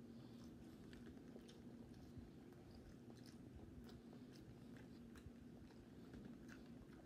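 A person chewing a bite of soft bun close to the microphone: faint, scattered wet mouth clicks and smacks over a steady low hum.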